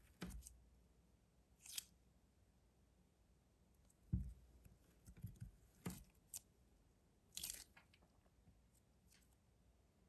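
Faint hand-handling of a squishy glitter gel stress ball: about eight brief soft squishes and light taps, scattered among stretches of near silence.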